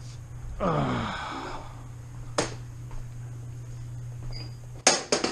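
A short falling groan about a second in, a single sharp click a little later, then a quick run of sharp clicks and knocks near the end, all over a steady low hum.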